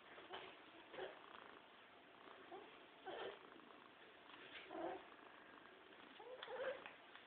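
An animal's short pitched calls, repeated about every second, with a bending rise-and-fall in pitch on the last and loudest call near the end.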